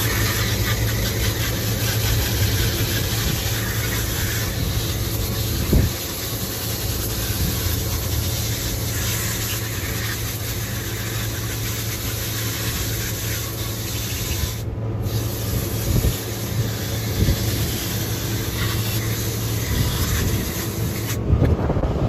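Garden hose nozzle spraying water through an air-conditioner condenser coil from the inside, rinsing dirt out of the fins: a steady hissing spray that breaks off briefly about two-thirds of the way in and stops shortly before the end. A steady low hum runs underneath.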